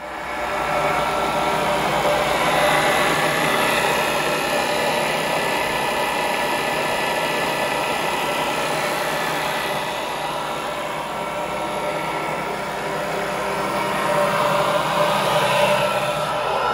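Machinery running steadily at constant speed: an even mechanical hum with steady whining tones on top.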